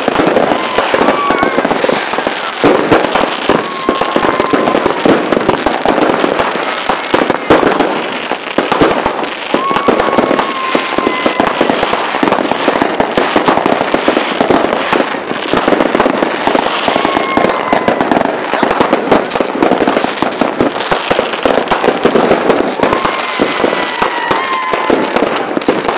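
Fireworks going off in a dense, continuous crackle of bangs, with a short whistling tone every few seconds.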